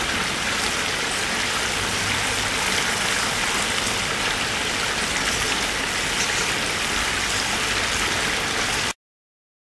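Shallow river water rushing over a gravel bed with a small spill of white water, a steady hiss that cuts off abruptly near the end.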